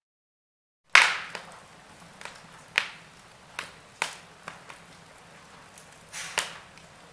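Wood fire crackling in a fireplace, cutting in suddenly about a second in. It goes on as sharp pops and snaps, the loudest at the start, then several more spaced roughly a second apart, over a soft steady hiss.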